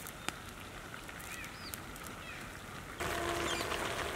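Quiet outdoor ambience with a few faint bird chirps, then, about three seconds in, a louder steady hiss from the wok of chana dal and bottle gourd steaming over the fire.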